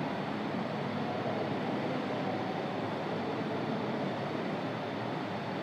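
Steady background noise with no speech: an even, unchanging hiss of room or recording noise.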